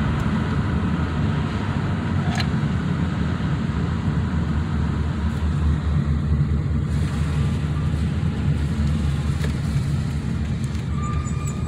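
Steady road noise of a moving car heard from inside the cabin: a low, even rumble of tyres and engine.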